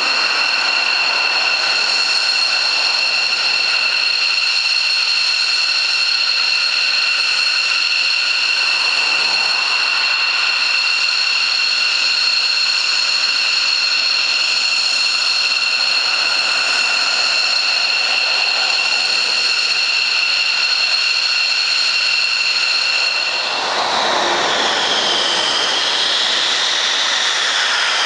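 McDonnell Douglas F-15C Eagle's twin Pratt & Whitney F100 turbofan engines running at taxi power: a loud, steady, high-pitched jet whine. Near the end the whine wavers, dipping and then rising in pitch as the jet turns.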